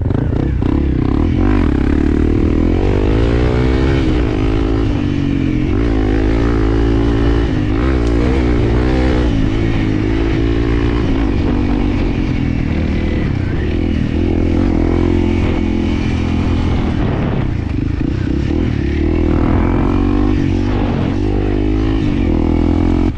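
Honda CRF300L's single-cylinder four-stroke engine running while riding, its note rising and falling as the throttle is opened and eased off.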